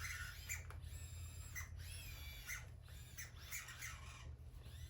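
Sony aibo robot dog's leg joint squeaking as it moves, in a string of short high-pitched squeaks with a longer whine about a second in. This joint is still squeaky after the dog's repair, for a reason the owner doesn't know.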